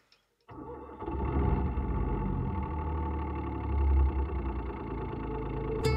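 Boat engine running steadily at idle, starting about half a second in.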